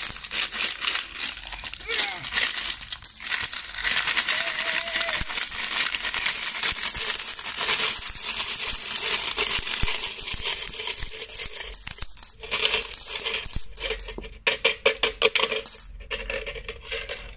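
Coins pouring and being shaken out of a cut-open plastic piggy bank, clinking onto a growing pile of coins in a dense, continuous rattle. The stream thins into separate clinks about twelve seconds in and stops near the end.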